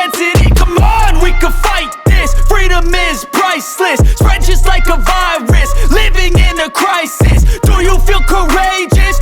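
Hip-hop music with deep, repeating bass notes and a wavering melodic line, from the rap backing track.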